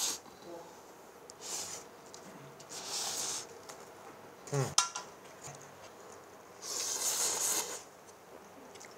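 People slurping ramyeon noodles in about four separate hissy slurps, with a short falling vocal sound about halfway through.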